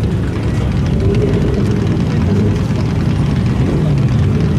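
Lamborghini Diablo V12 engine running at low revs, its pitch wavering slightly as the lowered car creeps forward.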